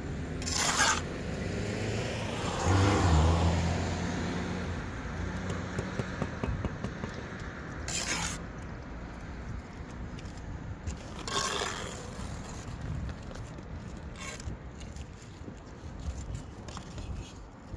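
Brick trowel scraping on mortar and brick: four short, separate scrapes spaced several seconds apart. A low rumble swells and fades about three seconds in.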